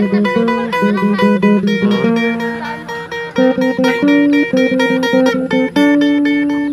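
Background music: acoustic guitar picking a quick run of notes, with a few longer held notes near the end.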